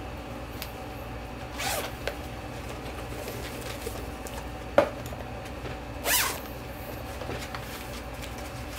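A spiral-bound notebook being handled and its pages turned: a few short paper swishes, the loudest about six seconds in, and a sharp click near the middle.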